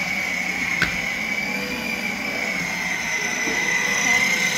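Electric motor and plastic gearbox of a child's battery-powered ride-on toy motorcycle whining steadily as it drives, the pitch drifting slightly with speed, with tyres rumbling on concrete and a single click about a second in.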